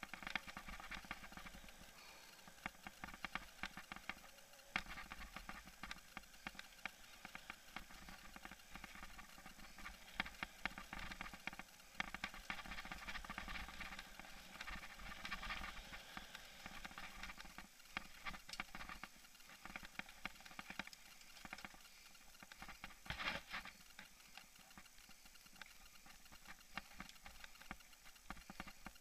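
Mountain bike ridden over rough dirt singletrack, heard through its bike-mounted camera: the camera rattles and clicks constantly in its mount, over a steady rush of noise, with a few louder knocks from bumps.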